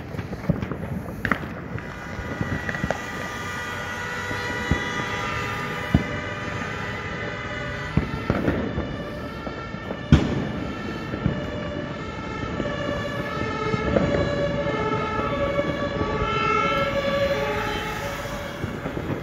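Firecrackers and fireworks banging here and there, the loudest about halfway through, over a steady crackle. A siren sounds from about two seconds in, and in the second half it alternates between two notes.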